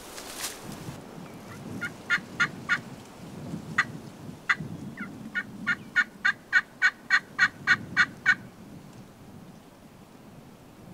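Turkey call running a series of hen yelps: a few scattered notes, then a steady string of about a dozen at three to four a second, with wind rumbling underneath.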